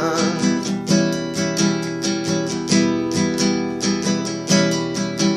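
Acoustic guitar strummed in a steady rhythm, about three strokes a second, as an instrumental break between sung verses.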